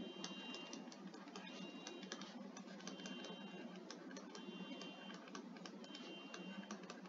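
Faint, irregular taps and clicks of a stylus writing on a tablet screen, with a faint high whine that comes and goes in short stretches.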